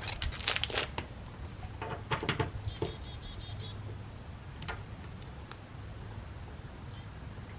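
Small metal hand tools clinking and rattling as they are handled: a quick cluster of clinks at the start, then scattered taps. The tools are being tried in sizes on a quick-release bumper fastener seized tight by corrosion.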